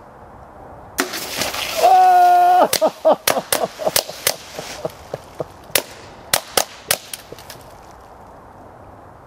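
Suppressed Ruger Mark III .22 pistol fired rapidly, a dozen or so sharp, muted shots at roughly three a second, with bullets striking 2-liter soda bottles. Early in the string comes the loudest sound, a high held tone with overtones lasting under a second.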